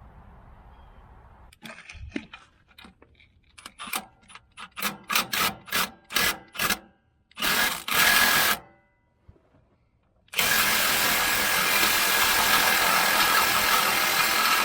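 Impact wrench on a tractor fastener: a series of short trigger bursts, then a longer burst, then a steady run of about five seconds near the end. The fastener is not breaking loose, and a bigger wrench is called for.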